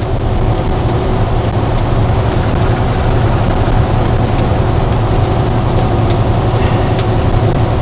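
Steady low engine drone with an even hiss over it, heard from inside a truck's cab.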